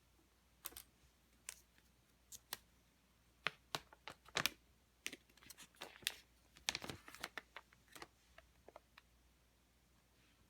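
A run of light clicks and taps from the Apple Watch Sport box and packaging being handled, thickest around the middle of the stretch.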